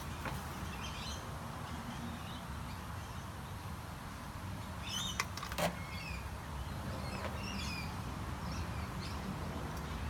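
Birds chirping now and then over a steady low hum, with two sharp clicks about five seconds in.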